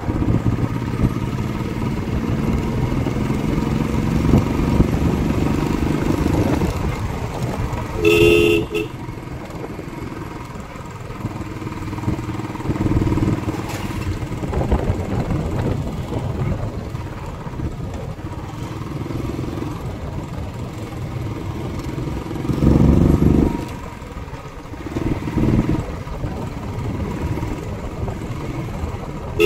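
Royal Enfield Classic 350's single-cylinder engine running while riding, with steady wind noise on the phone microphone and a few louder swells. A motorcycle horn honks briefly about eight seconds in and again right at the end.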